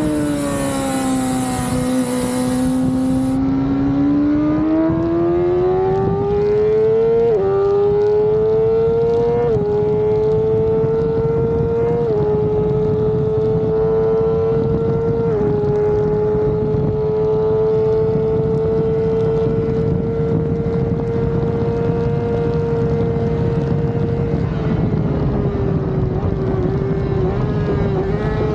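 Suzuki GSX-R600 inline-four engine at high revs, with wind rushing past. The pitch dips early, then climbs with two quick upshifts about 7 and 9 seconds in. It holds high and level for a long stretch, then eases off near the end.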